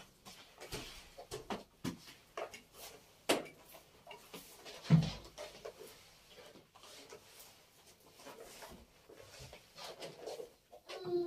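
Household objects being handled and set down during cleaning: scattered light clicks and knocks, with one heavier thump about five seconds in.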